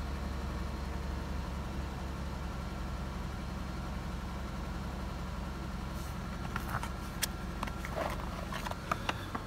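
The 2002 Toyota Sienna's 3.0-litre V6 idling steadily, heard as a low hum inside the cabin. In the last few seconds come a few light clicks and knocks as the handheld OBD-II scan tool is picked up.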